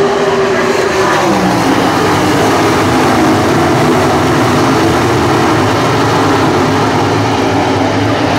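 A field of dirt-track race cars running hard around the oval, several loud engines at once overlapping into one steady noise. About a second in, one engine's pitch drops as a car goes by.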